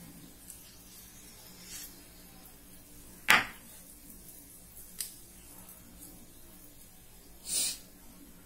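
Chef's knife cutting raw chicken breast on a wooden cutting board: a sharp knock of the blade on the board about three seconds in, a lighter click at five seconds, and a short scraping slice near the end.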